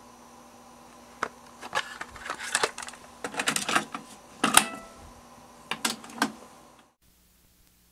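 A cassette being loaded into a TASCAM 202MKVII cassette deck: plastic clicks and clacks as the tape goes into the door well, the loudest about four and a half seconds in as the cassette door is pushed shut, then two clicks about a second later as Play is pressed and the logic-controlled transport engages.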